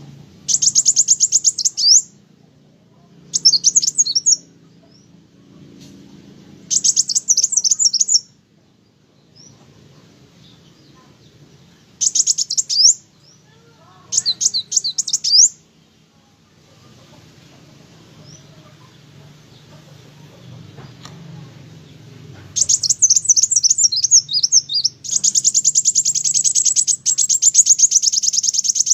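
Kolibri wulung sunbird singing in bursts of rapid, high-pitched twittering, each lasting a second or two with pauses between. Near the end the song becomes almost continuous.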